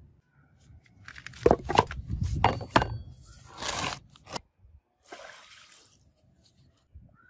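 Steel axe head handled on a wooden board: several sharp knocks and scrapes, some with a brief metallic ring, followed about five seconds in by a short rustling noise.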